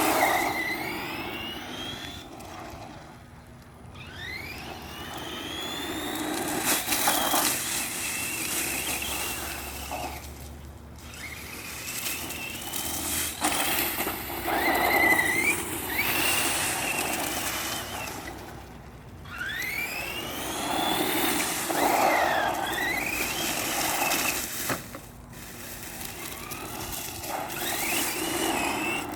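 Redcat Volcano EPX Pro RC monster truck's brushless electric motor whining up and down in pitch as the truck accelerates and slows in repeated runs, over a rushing noise from the drive.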